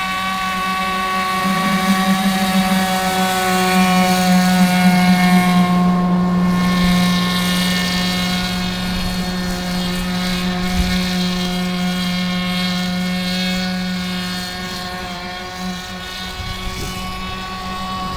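Radio-controlled nitro airboat's glow-fuel engine and air propeller running flat out at a steady high pitch. It grows louder over the first few seconds, then fades slowly as the boat moves away.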